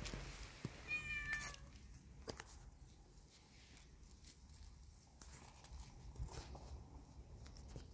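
A kitten gives one short, high meow about a second in, followed by faint rustles and light ticks of its paws moving in grass and dry leaves.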